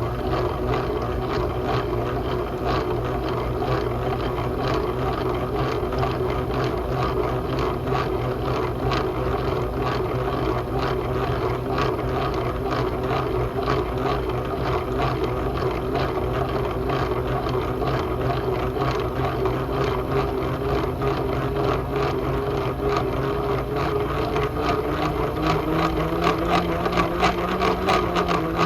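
Bookbinding end sheet maker running: a steady machine hum under fast, dense clicking and rattling from its mechanism. The hum's pitch rises slightly near the end.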